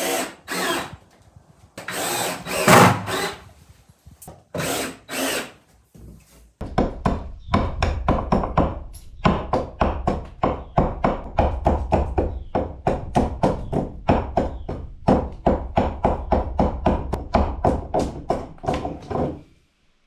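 Three short bursts of noise, then, starting about six seconds in, a hatchet striking wood in quick, even chops, about three to four a second, until near the end.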